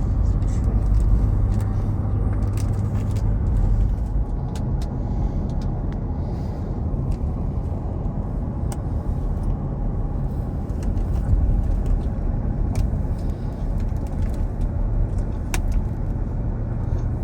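Steady low rumble of a car's engine and tyres on the highway, heard from inside the cabin, with a few faint clicks.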